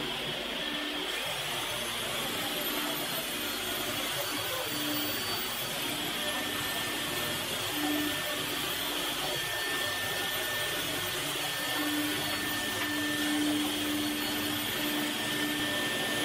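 Hand-held electric drill running steadily, spinning a round brush wheel against a CNC-carved wooden panel to brush the carved surface.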